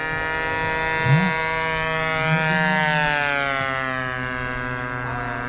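Propeller engine of a radio-controlled model airplane running steadily, its pitch drifting slightly up and then falling from about halfway through.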